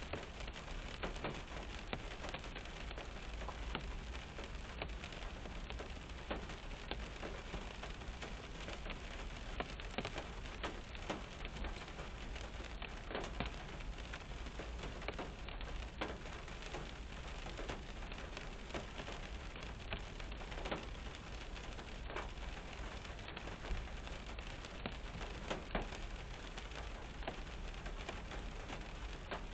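Rain falling on a car's roof and windshield, heard from inside the car: a steady wash of rain with many separate drops striking at irregular moments.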